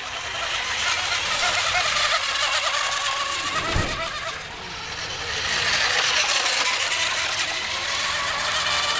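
Radio-controlled racing hydroplane boats running at speed: a high-pitched buzzing whine with a hiss of spray. It swells as the boats pass, dips about four and a half seconds in, then swells again.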